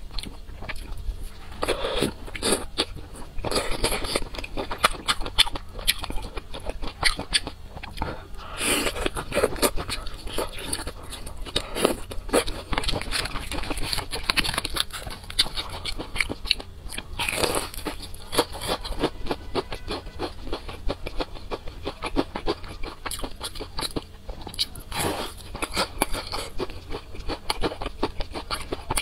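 A person chewing and biting into food close to a clip-on microphone: a dense, unbroken run of small clicks and crunches.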